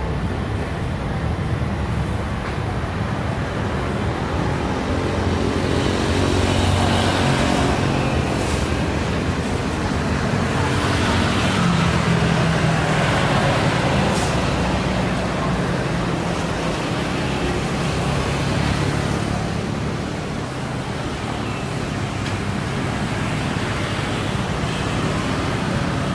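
Boeing 737-800's CFM56 jet engines running at taxi power as the airliner taxis and turns on the ground: a steady rumble with a low hum that grows a little louder in the middle as the aircraft swings toward the listener.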